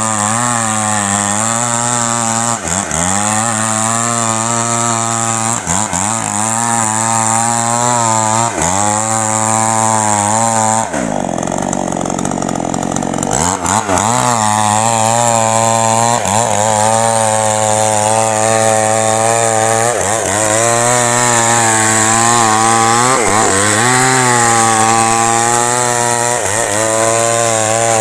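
Small YAMAMAX two-stroke chainsaw running at full throttle while ripping a coconut palm trunk lengthwise. The engine pitch dips briefly every couple of seconds as the chain bites into the wood, then climbs back. There is a short break of a couple of seconds about eleven seconds in.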